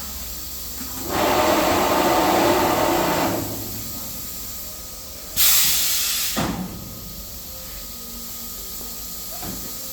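Curtain-fabric cutting machine making a cut, a rushing noise for about two seconds, then a short sharp hiss about five seconds in.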